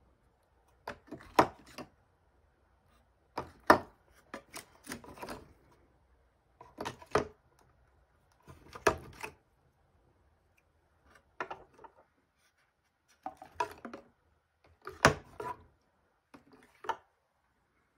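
Small plastic alcohol ink bottles clicking and knocking against one another and the storage box as they are picked out, and tapping as they are set down on a glass craft mat. The sounds come in short clusters of sharp taps every second or two.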